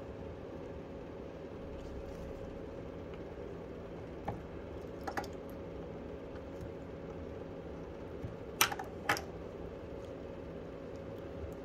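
Small clicks and taps from handling an opened Samsung Galaxy S10+ smartphone during a battery replacement. A few light clicks come through the middle, then two sharper clicks about half a second apart late on, over a steady low hum.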